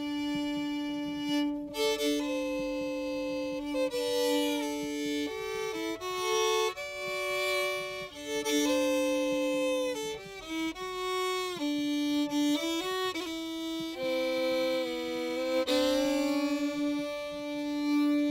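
Background violin music: a slow melody with sliding notes over a steady held lower note.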